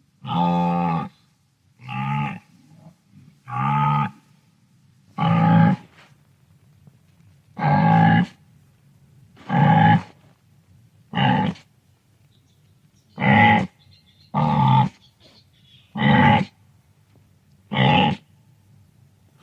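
Wildebeest (gnu) grunting: a series of about eleven short, pitched grunting calls, one every one and a half to two seconds.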